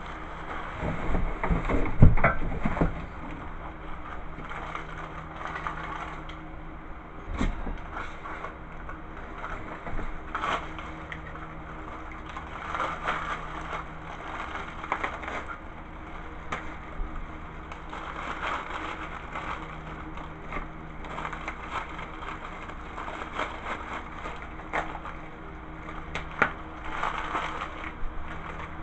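Exercise-bike parts being handled inside a cardboard box: plastic wrap rustling, cardboard scraping, and scattered knocks, with a cluster of loud thumps about two seconds in.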